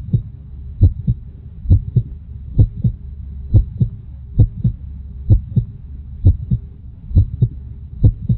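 Human heartbeat: paired lub-dub thumps, a little more than one beat a second, over a steady low hum.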